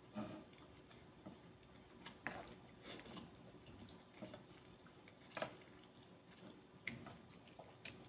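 A person eating suki noodles: faint chewing and wet mouth sounds, with a handful of short sharp clicks spread through.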